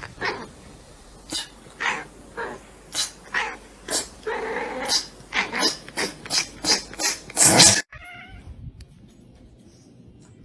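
A pet animal calling in a run of short, sharp sounds about two a second, with one longer pitched call in the middle. The calls stop abruptly about eight seconds in.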